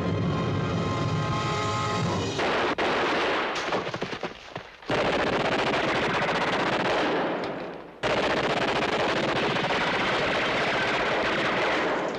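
Music, then three long bursts of automatic gunfire, each starting suddenly and trailing off: about two seconds in, about five seconds in, and about eight seconds in, the last the longest.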